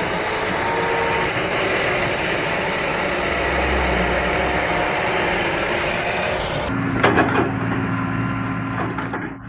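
Heavy equipment diesel engine running under load. About two-thirds of the way through, the sound changes to a steadier engine note with a few sharp knocks, then drops sharply near the end.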